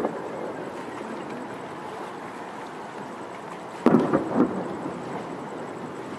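Aerial fireworks shells exploding: a quick cluster of three or four booming bangs about four seconds in, over a steady background hiss.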